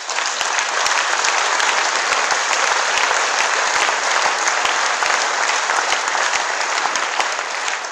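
Audience applauding: dense, steady clapping from a large crowd that eases off near the end.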